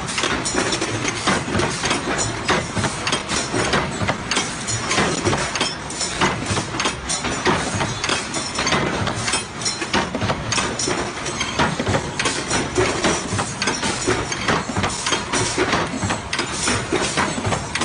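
JH21 pneumatic punch presses running on a hinge-punching line: a fast, uneven clatter of punching strokes, several a second, over a steady machine din.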